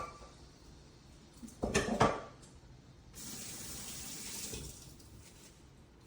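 A clatter of dishes or metal kitchen parts knocking together, then about a second and a half of water running from a tap.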